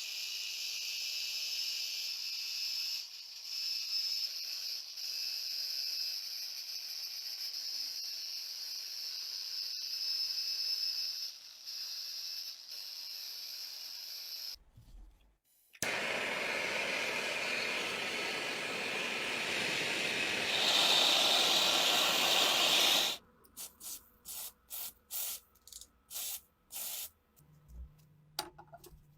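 Pressurised spray hissing steadily for about 14 seconds. After a short break it comes back louder and fuller for about seven seconds, then gives way to short irregular clicks and scrapes.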